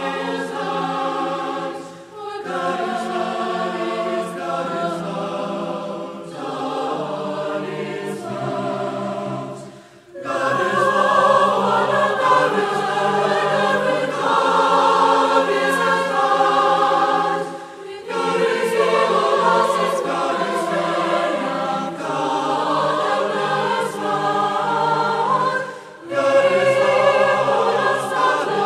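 Background choir music: several voices singing a hymn in harmony, in long phrases with brief breaks between them.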